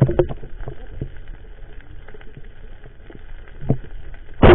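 Muffled underwater sound through an action camera's waterproof housing: a steady hiss with scattered sharp clicks and knocks, and one loud rushing burst near the end.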